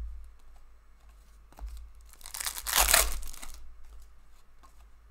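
A foil trading-card pack wrapper being torn open: a single rustling rip lasting about a second and a half, a little past the middle, with a few light card clicks before it.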